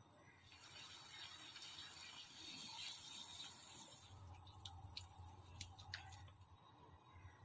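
Faint stirring of a thick cream sauce in a nonstick pan with a silicone spatula: a soft hiss for the first few seconds, then a few light, scattered clicks and scrapes.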